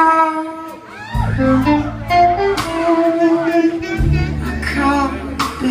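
Live blues band playing: a woman singing over electric guitar, with held bass notes coming in twice.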